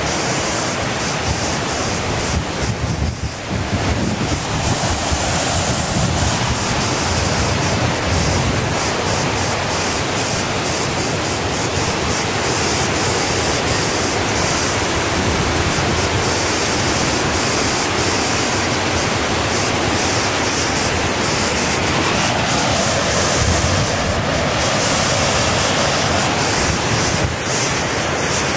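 Loud, steady rushing noise of wind buffeting the microphone, mixed with the rush of moving water.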